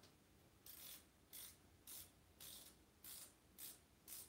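Faint ratchet wrench clicking in short regular strokes, about one every half second or so, as the handlebar stem bolts are snugged up.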